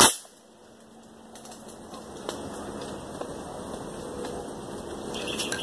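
A single air rifle shot: one sharp crack right at the start that dies away within about half a second, leaving a quieter steady background.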